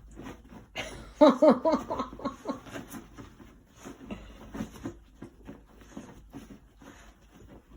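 Dog shuffling and pawing about on bedding as she settles in, with a run of short rustles and scratches. About a second in comes a brief string of four or five pitched voice-like sounds.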